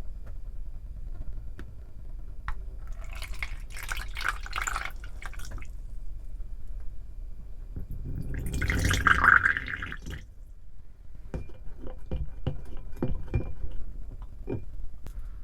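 Water being poured into a container, in two pours of a couple of seconds each, followed by small clicks and knocks of handling.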